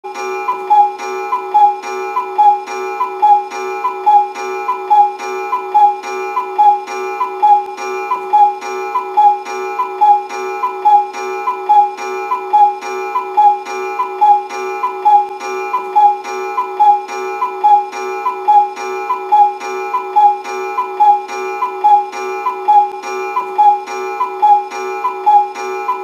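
Cuckoo clock call: a two-note 'cu-ckoo', high then low, repeated over and over without pause, a little more than once a second.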